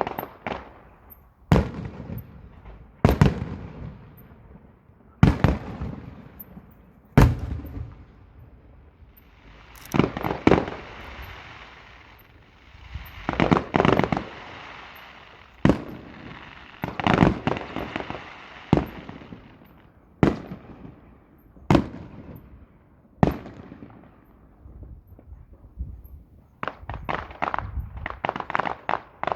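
Aerial fireworks shells bursting with sharp bangs every one to two seconds. A long crackling hiss runs through the middle, and a quick string of bursts comes near the end.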